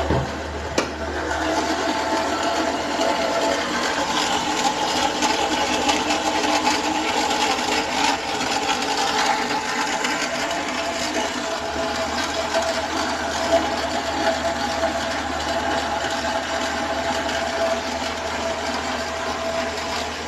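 Renault Sandero 1.6 8-valve engine running with a loud, steady mechanical clatter. The owner suspects it comes from the cylinder head or rocker arms.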